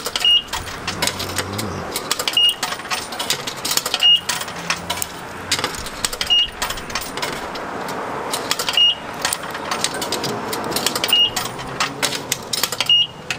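Quarters fed one by one into a self-serve car wash coin box: clinking coin drops, with seven short high beeps about two seconds apart as the coins go in, over a steady background noise.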